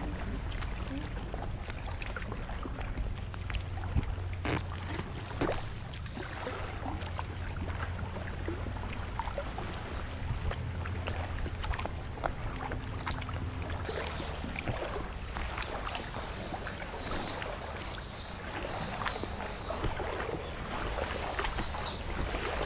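Water lapping and splashing against a sea kayak's hull as it is paddled, with scattered light knocks. About two-thirds of the way in, birds start calling repeatedly in high chirping calls.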